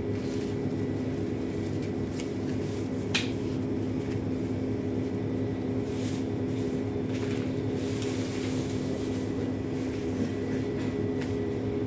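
Steady mechanical hum made of several low, unchanging tones, with a few light clicks from knife work on a beef carcass; one sharper click comes about three seconds in.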